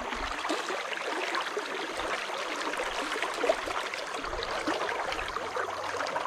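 River water running steadily, an even rushing wash.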